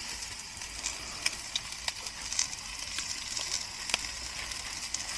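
Food sizzling as it cooks, a steady hiss with scattered small crackles.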